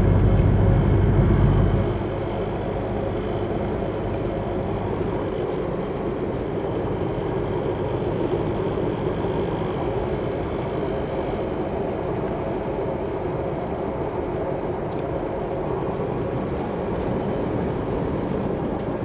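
Chevrolet S10 pickup driving at road speed, heard from inside the cab: a steady drone of engine, tyres and road. A heavy low rumble in the first two seconds drops away, leaving an even, lighter drone.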